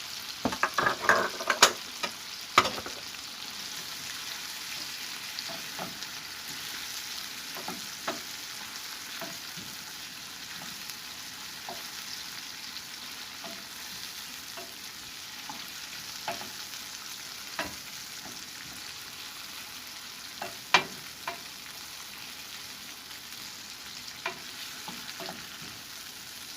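Onion, tomato, scallion and sweet pepper sizzling in hot olive oil in a pot, a steady frying hiss. A utensil knocks against the pot as it is stirred: a quick flurry of knocks in the first few seconds, then only an occasional click.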